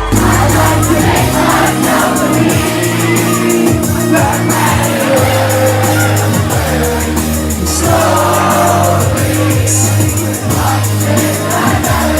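Music with singing over held bass notes and a steady beat.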